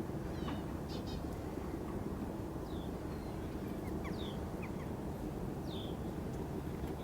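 Birds calling outdoors: a scattering of short, high, downward-sliding chirps over a steady low rumble.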